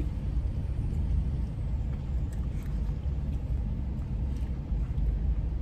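Steady low rumble of a car idling, heard inside its cabin, with a few faint clicks and scrapes of a plastic spoon in a cup.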